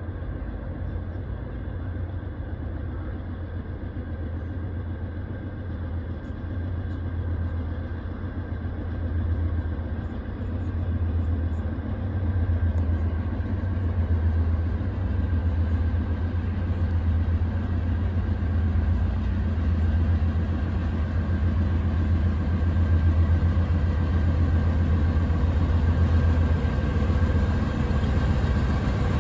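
Diesel locomotives of a Norfolk Southern freight train, led by two GE AC44C6M units, approaching: a steady low engine rumble that grows gradually louder as the train comes nearer.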